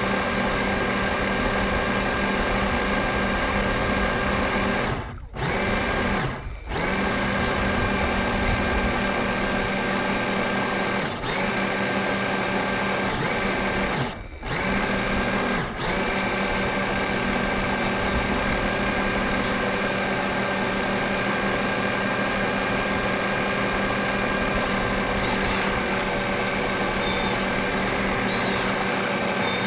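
RC race boat's motor running at a steady high speed with a whine. It eases off briefly twice around five to seven seconds in, and again around eleven, fourteen and sixteen seconds in.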